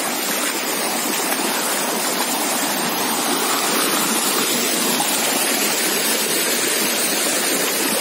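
Shallow rocky stream rushing and splashing over stones: a steady hiss of running water close to the microphone.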